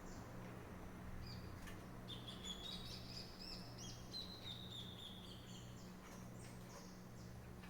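Small birds chirping and twittering, a string of short high calls that builds about two seconds in and fades out near the end, over a faint steady low hum.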